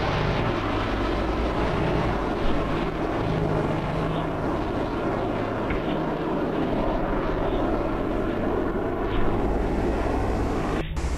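Two military fighter jets flying overhead: a steady, dense rush of jet engine noise with a low rumble underneath. There is a brief dropout near the end.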